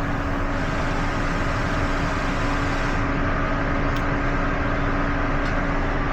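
Steady mechanical running noise with a constant hum tone, unchanging throughout.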